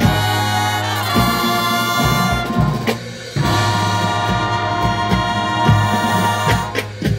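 Drum and bugle corps brass line playing live, loud sustained chords with a strong low bass, punctuated by sharp low hits, with a short break about three seconds in.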